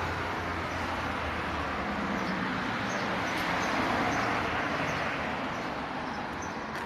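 A steady rushing noise that swells about four seconds in and then slowly fades, with faint short high chirps over it.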